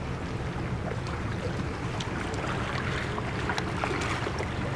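Harbour ambience: a steady low hum with wind and a general outdoor hiss, dotted with small scattered ticks and taps.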